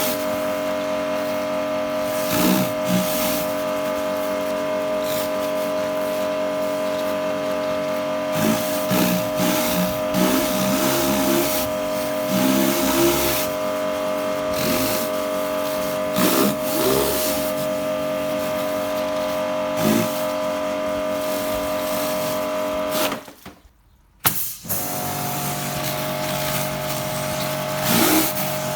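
Kärcher K5 pressure washer's electric motor and pump running with a steady whine under the hiss of water from the rotating patio cleaner scrubbing algae off paving slabs, with occasional short louder surges. About 23 seconds in the sound cuts out for about a second, then comes back with a lower hum.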